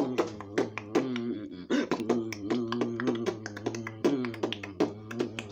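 Vocal beatboxing by a young performer: quick, regular mouth-drum hits over a steady hummed tone, with a short break about a second and a half in.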